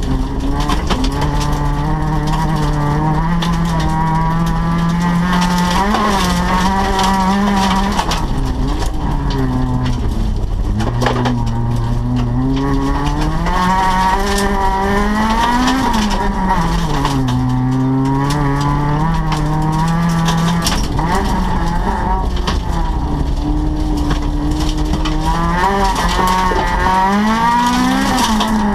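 Rally car engine heard from inside the stripped cabin at stage speed, its revs climbing and dropping every few seconds as the driver works through the gears.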